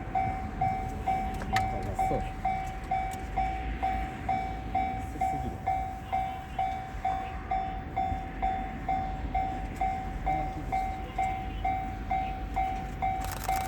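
Railway level-crossing warning bell ringing steadily at about two strokes a second, over a low rumble. A hiss comes in near the end.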